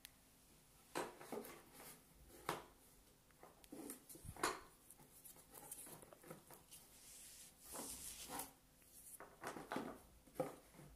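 Small toy cars clicking and knocking against each other and the cardboard box as a child rummages through it, with some rustling; irregular light clacks, the sharpest about four and a half seconds in and near the end.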